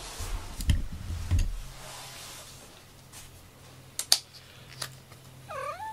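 Two dull knocks in the first second and a half, then a few sharp clicks about four seconds in, the loudest of them. A short pitched sound bending down and up comes near the end.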